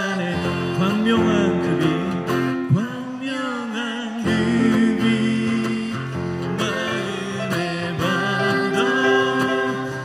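Acoustic guitar strummed steadily under voices singing a Korean gospel hymn, a man and a woman in duet.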